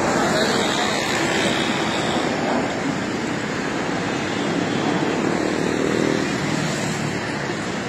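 Formation of military jet aircraft flying past low, their engines a steady rushing roar that eases slightly near the end.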